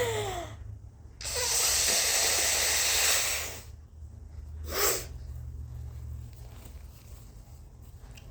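A woman's forced sneezing from an allergy-irritated nose. It opens with a short high-pitched gasping buildup, then a long loud rush of breath lasting over two seconds, then a short sharp sneeze about five seconds in.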